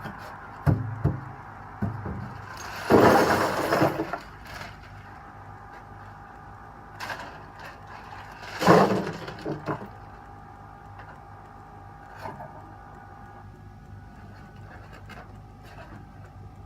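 Handling of a styrofoam cooler with ice in it: a few knocks early, then two loud rattling, scraping bursts about three seconds in and near the middle, over the steady hum of a fan.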